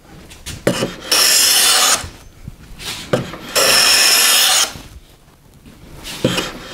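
Hand plane cutting along the edge of a board held upright in a vise. There are two long strokes of a little under a second each, with the rasping hiss of the shaving coming off. Short knocks sound between the strokes.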